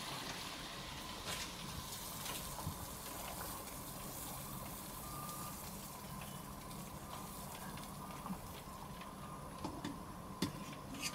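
Pot of water at a rolling boil with glutinous rice balls cooking in it, a steady bubbling hiss. Near the end a few light clicks as a wire-mesh strainer knocks against the aluminium pot.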